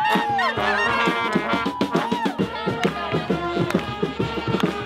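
Street brass band, with saxophone, trumpet and trombone, playing a lively tune over a bass drum beat.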